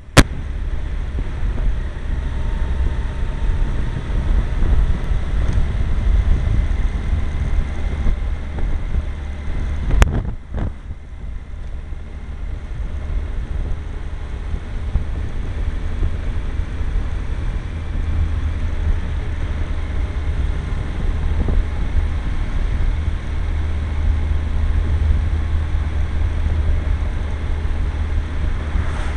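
Car driving along a lane, heard from inside the car: steady engine and road noise with a heavy low rumble. A single sharp click comes about ten seconds in, after which the noise briefly drops before settling back.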